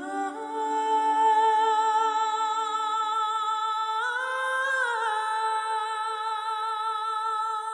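Background music of long held, wordless humming-like vocal notes with a slight vibrato. The pitch steps up about four seconds in and drops back about a second later.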